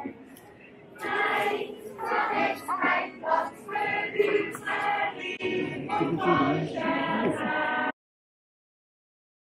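Yodel choir singing together in held chords, the voices gliding between pitches. It starts about a second in and cuts off abruptly near the end.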